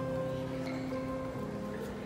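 A piano being played live: slow, held chords, with a change of chord about a second and a half in, over the steady background noise of an indoor shopping mall.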